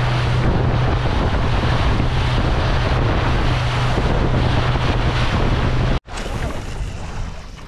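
Motorboat running under way: a steady engine hum under heavy wind on the microphone and rushing water. About six seconds in it cuts off abruptly to much quieter sound.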